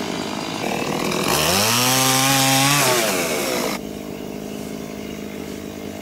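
Two-stroke chainsaw idling, then revved up for about a second and a half and let back down to idle. After an abrupt change a little past the middle, a steady idling engine drone carries on.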